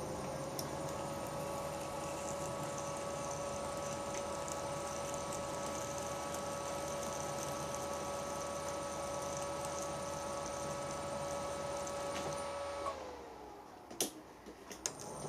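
Milling machine spindle, driven by a three-phase motor on an inverter, running steadily with a motor hum and a high inverter whine while power-tapping a 10 mm Helicoil thread. About 13 seconds in it winds down, two sharp clicks follow, and it starts up again near the end.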